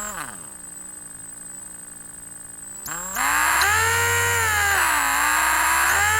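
Electric drill motor whine that slows down at the start and runs slower and quieter. About three seconds in, the trigger is squeezed and the motor speeds up to a loud high whine, then slows briefly and speeds up again near the end.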